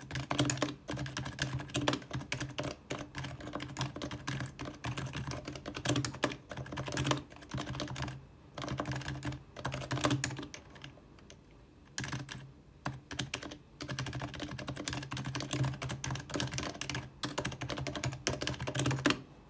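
HHKB Professional2 Type-S keyboard with silenced Topre capacitive switches being typed on in quick continuous runs of keystrokes. There are a few short pauses between phrases, the longest about eleven seconds in, and the typing stops just before the end.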